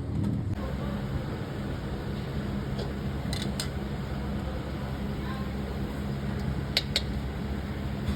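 A steady low mechanical hum, like a motor or fan running, with two pairs of sharp clicks, one about midway and one near the end.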